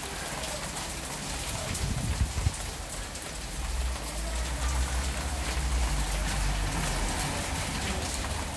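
Heavy rain pouring steadily, a dense hiss of many small drop ticks over a low rumble that swells about four seconds in.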